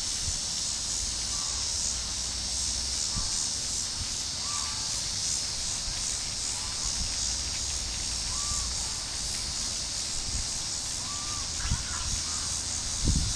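Outdoor ambience: a steady high-pitched hiss like an insect chorus, a low rumble underneath, and faint short calls every second or two.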